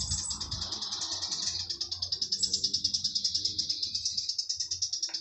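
Cicadas buzzing in a steady, high-pitched chorus that pulses several times a second, with a brief low rumble at the start.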